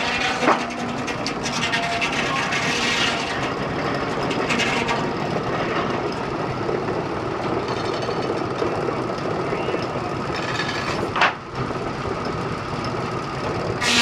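Steam-powered sawmill at work: the log carriage runs on its rail track past the circular saw, giving a steady noisy rumble. A sharp knock comes about half a second in and another about eleven seconds in.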